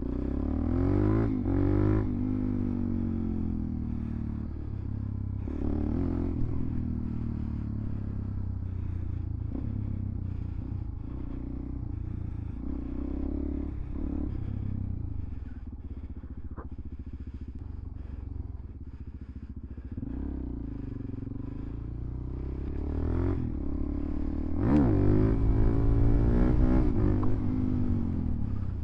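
Suzuki DR-Z400SM supermoto's single-cylinder four-stroke engine under way, accelerating and shifting through the gears several times, its pitch climbing and dropping back with each run. The loudest pull comes near the end.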